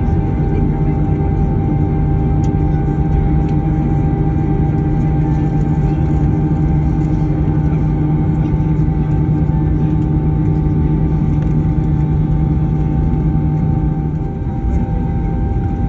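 Airbus A321 cabin noise while taxiing after landing: the jet engines running at idle make a steady rumble and hum with a few level tones, the strongest low tone dropping away about fourteen seconds in.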